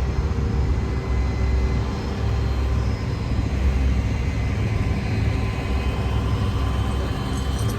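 Car engine idling: a steady low rumble with a faint, even hum over it.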